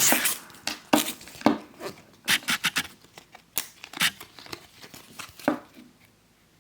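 Baseball trading cards being handled and flipped through by hand: quick, irregular clicks and rustles of card stock that thin out toward the end.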